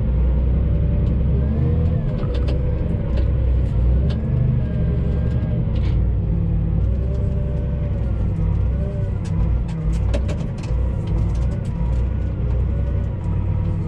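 Engine of heavy farm machinery running with a loud low rumble, its pitch wavering slightly up and down as the revs shift.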